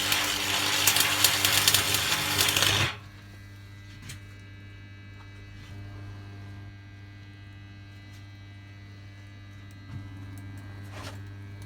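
Arc welding: the arc crackles and sputters loudly, then cuts off abruptly about three seconds in. After that the old arc welder's transformer hums steadily, with a few faint clicks.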